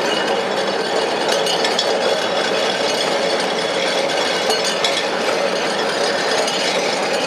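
Electric tram in motion, its body and running gear rattling and clattering steadily as it rolls along the track.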